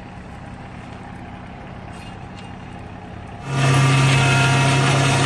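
Kärcher MIC 34 municipal implement carrier running steadily at a low, even hum, then about three and a half seconds in it suddenly gets much louder and fuller and holds there, as the machine goes up to working speed for mowing.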